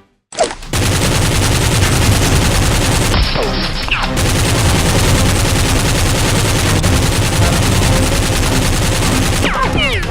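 Dense, unbroken rapid automatic gunfire, starting sharply just under a second in after a brief silence, with a few falling whistles about three and a half seconds in and again near the end.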